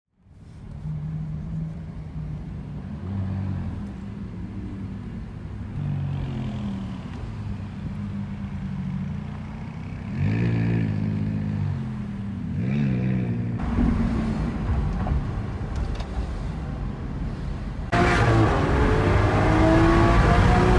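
Lamborghini Aventador SVJ's V12 running through its exhaust, idling unevenly with two short revs a little after halfway. It turns louder and noisier, with a sudden step up in level near the end.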